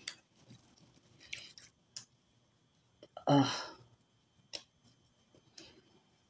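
Hands spreading sunscreen over the face: quiet scattered clicks and short soft rubbing sounds. A little over three seconds in comes one short vocal sound from the woman herself, the loudest thing heard.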